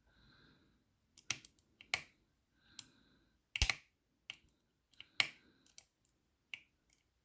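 Lever lock being picked: about a dozen sharp, irregular metallic clicks and ticks of the pick and tension tool working against the levers. The levers are overset, and the tension is being eased to let one drop back.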